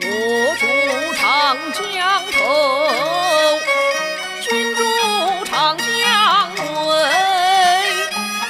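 Background music: a sliding, wavering melody line over held low notes.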